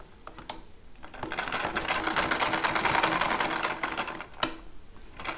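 Sewing machine stitching a seam: a fast, even rattle of the needle for about three seconds, with a click before it starts and another as it stops.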